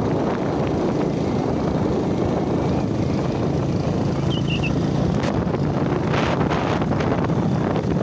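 Motorcycle riding along a road: the engine running steadily under heavy wind noise on the microphone.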